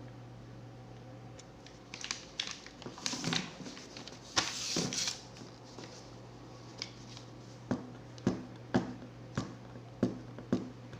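Handling sounds of hands working with cable and hand tools: light rustling and a longer scrape about four to five seconds in, then a run of sharp clicks about every half second.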